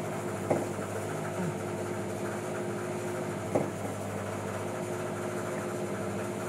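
Engine idling with a steady hum, broken by two short sharp knocks, about half a second in and again about three and a half seconds in.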